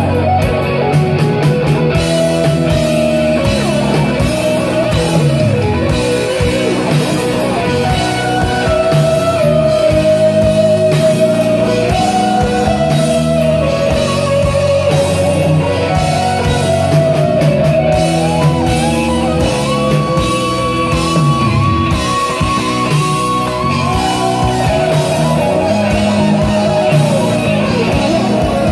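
Live rock band playing: electric guitars, bass guitar and drum kit, loud and amplified, with held, gently wavering lead notes over the chords.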